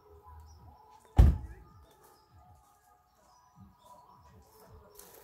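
A car door shut once with a heavy thunk about a second in, over faint bird chirps.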